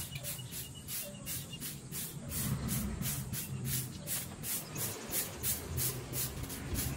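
Broom sweeping the ground in quick, even strokes, about three swishes a second.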